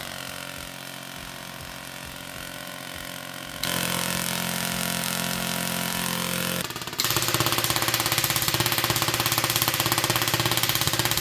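Homemade Tesla coil's electric arcs buzzing with a steady, evenly pitched tone as they strike a plasma lamp and the phone on top of it. The buzz switches on abruptly and gets louder in two steps, about four and about seven seconds in.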